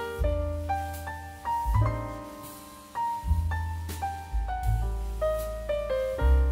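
Background piano music: a run of separate notes over a deep bass line.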